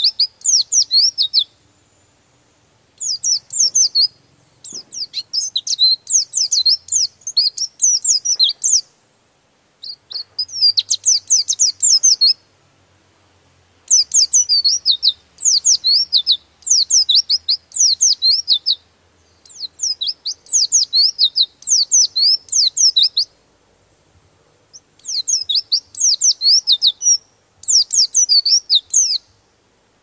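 White-eye (pleci) singing its long rolling song: phrases of rapid, high-pitched sweeping notes, each one to four seconds long, with short pauses between them.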